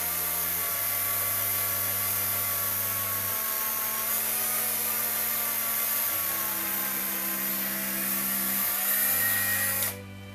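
Cordless power drill running steadily as a 1 mm bit drills a pilot hole into a hardwood rifle stock, its pitch wavering a little now and then. The drill stops suddenly about a second before the end.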